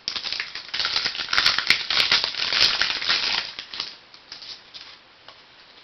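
Trading card pack wrapper crinkling as it is torn open and handled. It crackles loudly for about three seconds, then dies down to faint rustles near the end.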